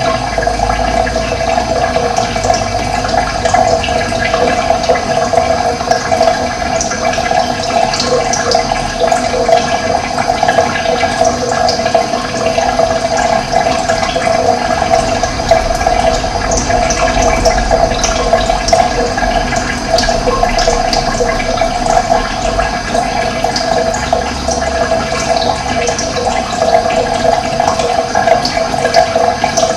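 Running water rushing steadily, with short high chirps of small birds scattered over it.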